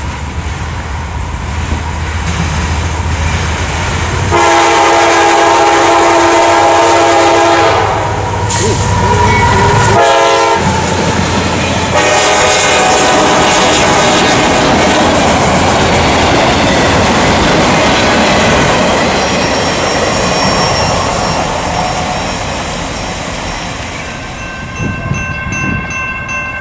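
CSX diesel freight locomotives approaching and passing, blowing a multi-chime air horn: a long blast, a short one, then another long one. After that come the rumble and clatter of the train's wheels and cars going by.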